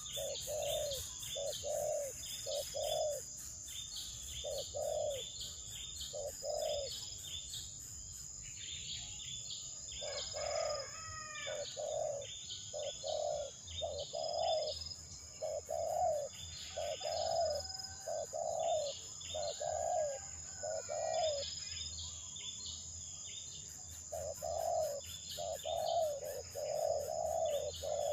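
Coucal chick calling: short, mid-pitched notes repeated in bouts of two to five with short gaps between bouts, the begging calls of a hungry chick. Higher chirps from small birds and a steady, high-pitched insect whine run alongside.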